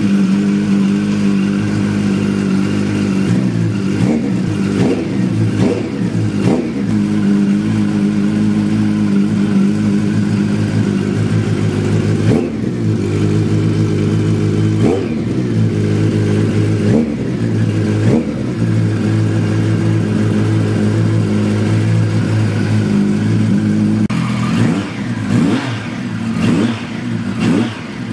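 Kawasaki Z1100R's air-cooled inline-four idling through a Marshall aftermarket muffler, blipped several times in quick succession about four to seven seconds in, then single blips every couple of seconds between twelve and eighteen seconds in. Near the end the same engine idles through a KERKER small-baffle muffler, blipped again and again.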